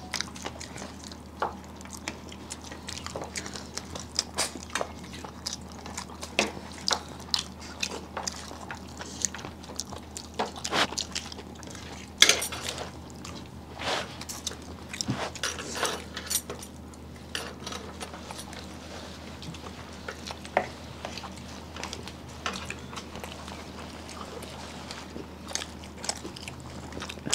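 People eating close to the microphone: scattered chewing, biting and mouth smacks, with now and then a light clink of dishes, over a low steady hum.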